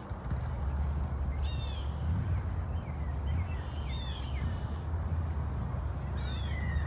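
Wind rumbling on the microphone, with a bird giving three short calls, each sliding down in pitch, about two and a half seconds apart.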